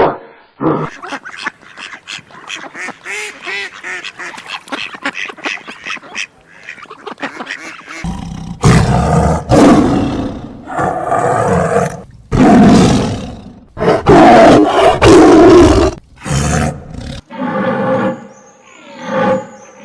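Farm animal calls, one animal after another: a fast string of short calls for the first several seconds, then louder, longer calls from about eight seconds in.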